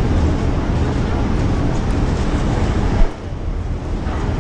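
Busy city street noise from avenue traffic, a steady rumble. A short thump about three seconds in, after which the noise drops for about a second.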